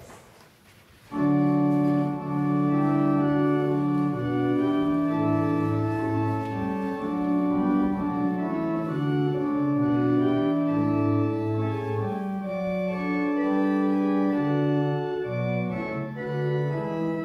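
Church organ playing the tune of the first hymn in sustained chords over a moving bass line, coming in about a second in after a moment's quiet.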